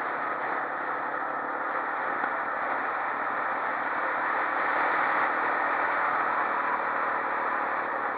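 Steady onboard noise of a quad bike riding on a paved lane: a dense rush of wind and road noise with rattling and engine underneath, swelling a little about halfway through.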